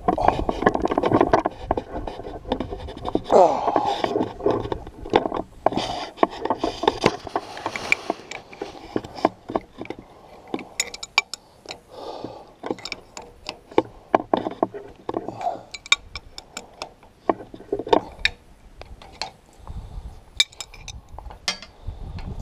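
Open-end wrench and locking pliers turning a steel hydraulic hose fitting on a loader lift cylinder: irregular metal clicks, knocks and scrapes as the tools shift and bite on the fitting.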